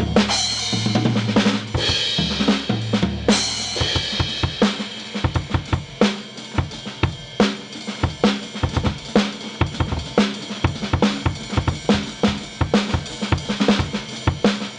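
Background music with a steady drum-kit beat of bass drum, snare and hi-hat. A bass line and cymbal crashes play over the beat for the first few seconds, then drop out, leaving the drums.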